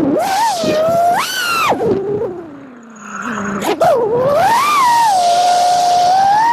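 FPV freestyle quadcopter's brushless motors whining, the pitch rising and falling as the throttle is punched and eased. About two seconds in the throttle drops and the whine sinks low and quiet, then a sharp punch near four seconds brings it back up to a steady high whine.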